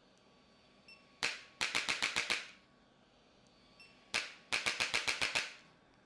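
Electric chiropractic adjusting gun firing against the lower spine: a sharp click, then a rapid run of about seven clicks, about eight a second. The same pattern comes twice, about three seconds apart.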